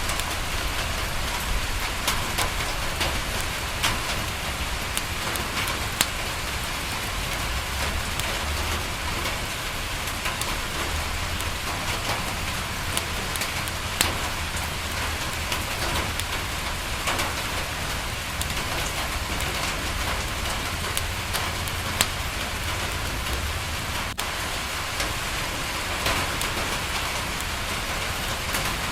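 Steady rain on a window with a wood fire crackling: an even hiss of rain, a low rumble underneath, and occasional sharp pops every few seconds.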